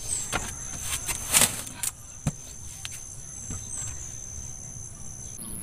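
A large kitchen knife slicing the skin off a green papaya: a few short scraping cuts, the loudest about a second and a half in, and a sharp knock a little after two seconds, over a steady high-pitched whine in the background.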